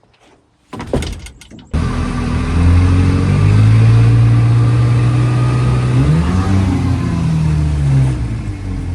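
After a few brief knocks, an outboard motor suddenly comes in loud, running steadily while the boat is underway. Its pitch rises briefly about six seconds in, then drops back.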